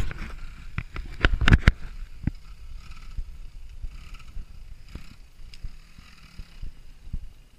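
Sharp knocks and rattles on the camera for the first couple of seconds, then quieter, with faint scattered clicks and rustling.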